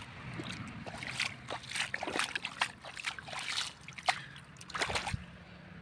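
Bare feet splashing and sloshing through shallow muddy water in a flooded field, in irregular steps, with a faint steady low hum underneath.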